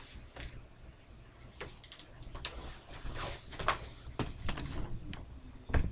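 Camera handling noise: irregular clicks, knocks and rustles as the camera is picked up and moved by hand, with the loudest knock near the end.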